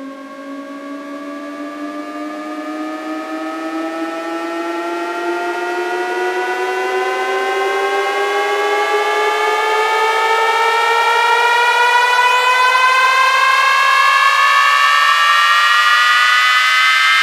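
Electronic riser in a DJ sound-check track: several synth tones glide slowly upward together and grow steadily louder, with the low end filtered out more and more as it climbs.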